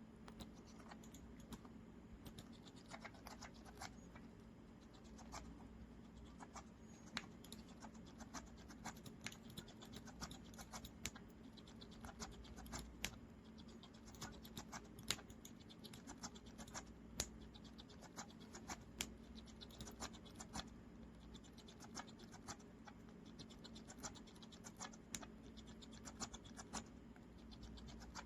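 Blue Quaker parrot making faint mouth sounds: soft, irregular clicks that come every fraction of a second, some louder than others.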